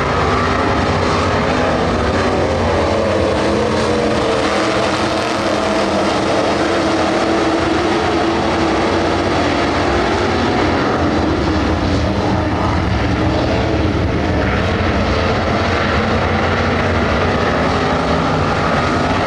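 A pack of dirt-track stock cars running together around the oval, their engines making a loud, steady drone whose overlapping pitches rise and fall slightly as the cars work through the turns.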